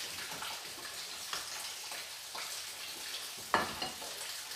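Knife cutting and scraping a cake in a metal baking pan: light scrapes and faint ticks, with one sharp knock about three and a half seconds in.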